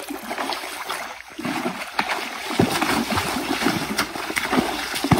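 A hooked fish thrashing at the water's surface, making a run of irregular splashes over a steady wash of churned water.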